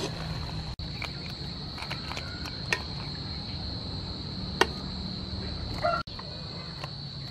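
A steady, high-pitched insect drone, with a couple of sharp metal clinks as tongs lift the cooked mantis shrimp from a steel wok onto a plate.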